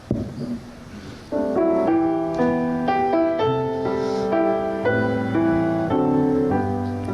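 Instrumental introduction to a congregational hymn: a steady sequence of sustained chords, starting about a second in.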